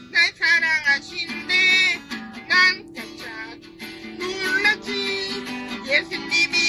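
Singing over a strummed acoustic guitar backing.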